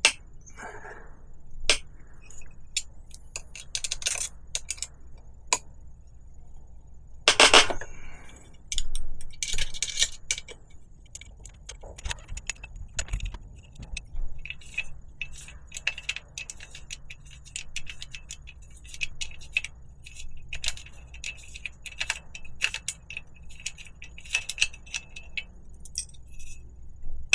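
Hand rivnut setting tool being loosened and unthreaded from a freshly set rivnut: irregular light metallic clicks and clinks, with a few louder scraping bursts in the first ten seconds.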